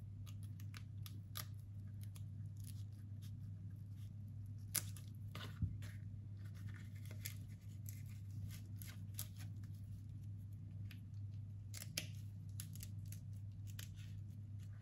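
Banana leaf crackling and rustling as it is folded and pinched shut around the end of a filled otak-otak roll, with scattered light clicks and ticks, over a steady low hum.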